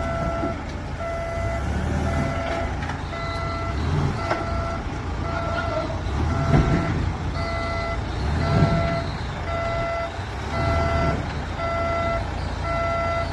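Doosan forklift's reversing alarm beeping steadily, a bit over once a second, over its engine running, with two louder surges of the engine about six and a half and eight and a half seconds in.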